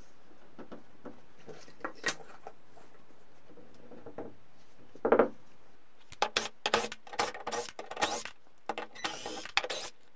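Wooden shims being slid and wedged under the bottom of a door, with light scrapes and one knock about five seconds in. A rapid run of clicks and scrapes follows from about six seconds on, with a short squeak near the end.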